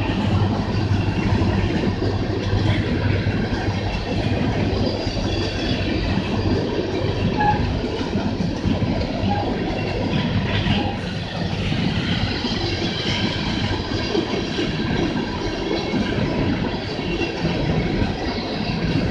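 Empty coal hopper cars rolling over a railway bridge overhead: a steady rumble and clatter of wheels on the rails.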